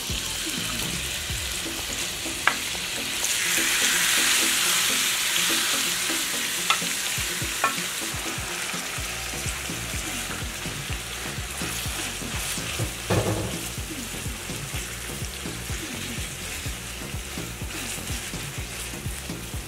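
Marinated beef strips sizzling in hot oil in a nonstick frying pan as they are poured in and stirred with a wooden spoon. The sizzle swells a few seconds in, then settles to a steady frying hiss, with a few light knocks of the spoon against the pan.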